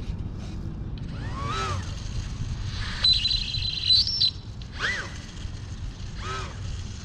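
Micro RC plane's small electric motor and propeller revved in short throttle blips, each rising and falling in pitch, with one longer high-pitched full-throttle run in the middle that climbs a little before cutting off.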